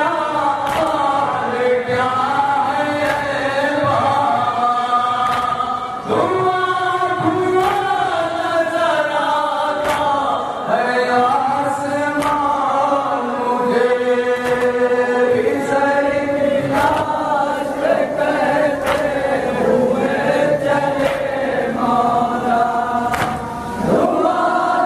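A group of men chanting a noha (Shia lament) in unison, led by a reciter on a microphone, with long drawn-out sung lines. Sharp hand slaps of matam (chest-beating) cut in every second or two.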